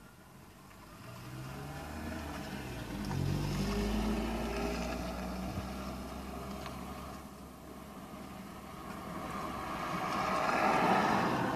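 Cars driving past on the road, engine and tyre noise swelling and fading as each goes by: one pass about three to five seconds in with the engine pitch climbing, a second louder one near the end.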